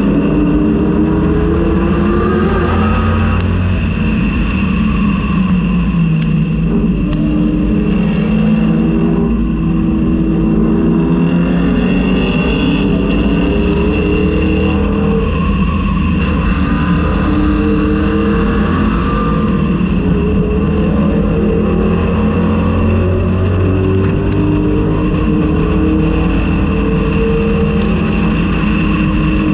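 1999–2004 Ford Mustang race car heard on board at racing speed, its engine pitch climbing and dropping repeatedly with throttle and gear changes.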